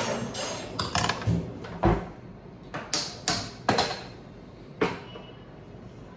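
Kitchen clatter: a cooking pan being handled and set on a gas stove, with a run of sharp metal knocks and clunks over the first five seconds.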